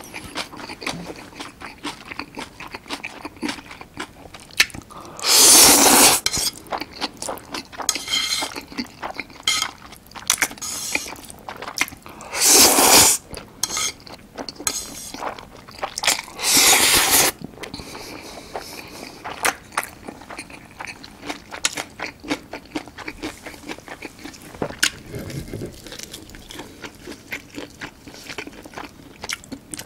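Close-miked eating of Chapagetti black-bean instant noodles: three loud slurps, each about a second long, with wet chewing and mouth smacks in between.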